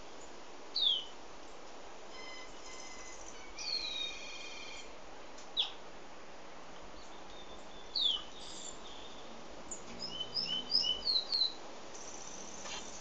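Cinnamon-rumped seedeater (Sporophila torqueola) singing: high whistled notes that slide downward, a stretch of buzzier notes, and near the end a quick run of short sweet notes followed by a brief trill.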